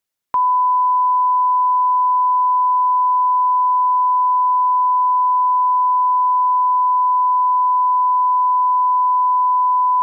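Broadcast test tone of the kind that goes with SMPTE colour bars: one steady, pure, high beep. It starts suddenly about a third of a second in and holds at one pitch and level without a break.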